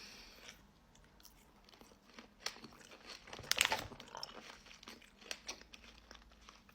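A person chewing and biting into small sweets, with scattered crunchy clicks; the loudest bite comes about three and a half seconds in.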